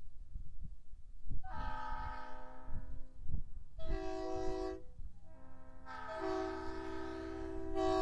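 Multi-chime locomotive air horn sounding a steady chord in three blasts: a longer one, a short one, then a third that starts about two-thirds of the way in and is still sounding at the end.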